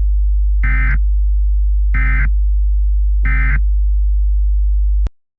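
Emergency Alert System end-of-message data signal: three short, buzzy digital tone bursts about a second and a quarter apart, marking the end of the alert. A steady low hum runs beneath them and cuts off abruptly near the end.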